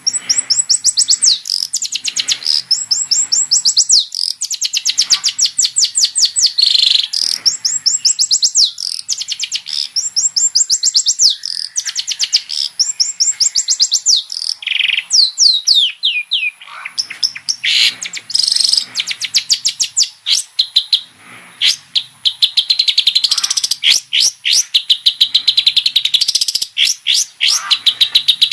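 Long-tailed shrike singing nonstop: loud, high trilled phrases of very rapid repeated chirps, each phrase about a second long, following one another with brief breaks.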